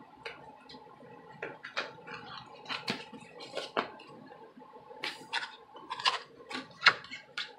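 Crinkling and light taps of a rolled paper poster being handled and unrolled: scattered short crackles with a few sharper clicks.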